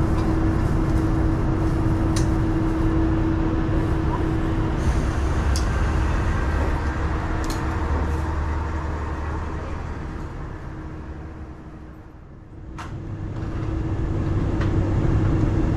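Diesel railcar running: a steady engine hum over low rumble. The sound fades down about ten to twelve seconds in and comes back up.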